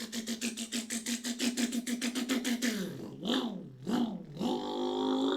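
A person imitating a car engine with the mouth: a rapid, even puttering idle for about three seconds, then two quick revs that dip and swoop back up, ending on a held engine tone.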